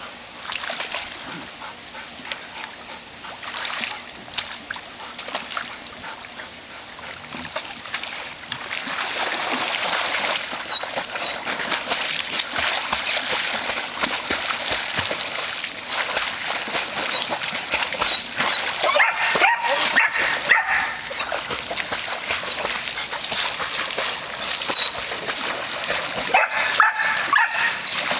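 Labrador retriever swimming alone in a pool, paddling and splashing steadily from about eight seconds in. Two bouts of high-pitched whining cries come from the dog, about two-thirds of the way through and again near the end.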